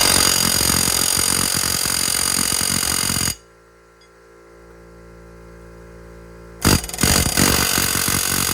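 Air impact wrench hammering in a run of rapid blows that stops abruptly about three seconds in. It starts again in short bursts near the end.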